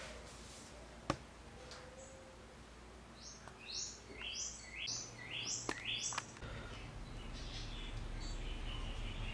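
A bird chirping: a quick run of about eight short, repeated chirps in the middle, with a sharp click about a second in and a low steady hum coming in near the end.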